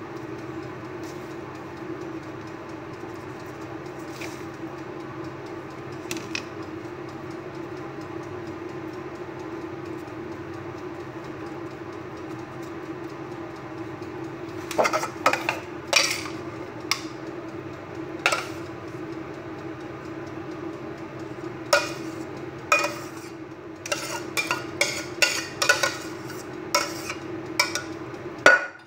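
Serving spoon clinking and scraping against a metal pot and glass baking dish as bechamel sauce is scooped out and spread. The sharp clinks start about halfway and come in quick runs near the end, over a steady hum.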